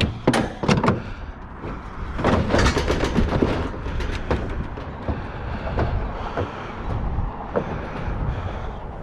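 Scrap metal being pulled about and loaded: a few sharp knocks, then a busy clatter of knocks and scraping, easing into steadier handling noise over a low, steady rumble.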